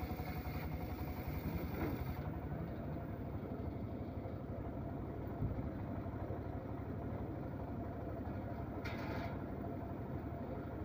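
Homemade circular saw bench running steadily, the blade ripping through an acacia board for the first two seconds, then spinning free once the cut is finished. A short higher-pitched scrape near the end.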